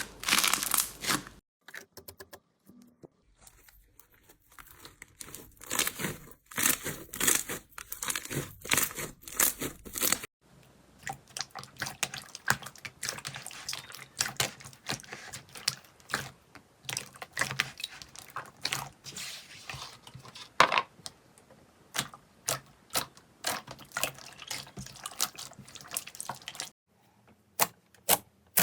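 Slime being squeezed, stretched and poked: irregular wet, crackling squishes and pops, split into several short takes. Near the end come evenly spaced sharp clicks, first about one a second, then about three a second.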